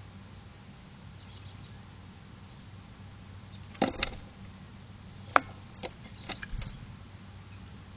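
A few short, sharp taps and knocks, scattered over about three seconds in the middle, the loudest a single crisp click about halfway through, over a low steady hum.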